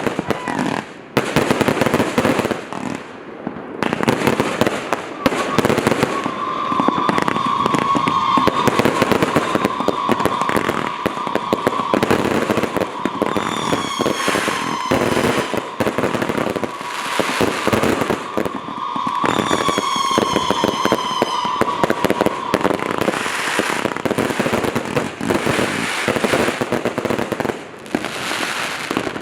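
Two World Class Fireworks 500-gram-style show-in-a-box cakes, Wings of the Brave and Shield of Liberty, firing together in a continuous barrage of rapid bangs and crackling. A steady high tone runs through the middle stretch, with short whistling glides twice.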